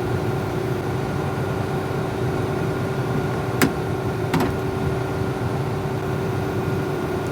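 Combine harvester running with a steady hum, with two sharp clicks a little past the middle.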